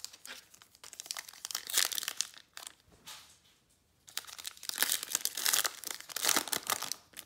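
Foil wrapper of a Panini Prizm basketball card pack crinkling as it is pulled from the box and handled, then crinkling and tearing as it is ripped open. Two spells of crinkling, with a pause of about a second between them.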